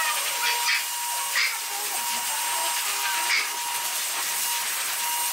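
High-velocity pet dryer blasting air into a wet standard poodle's coat: a steady rush of air with a constant whine, briefly louder a few times as the nozzle moves.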